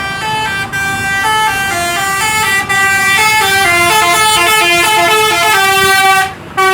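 Bus 'telolet' Basuri multi-tone air horn playing a quick tune of changing notes, several pitches sounding together. It stops about six seconds in, then gives one short last blast near the end.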